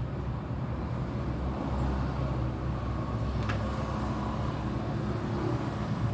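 A vehicle engine running steadily, with a single sharp click about three and a half seconds in.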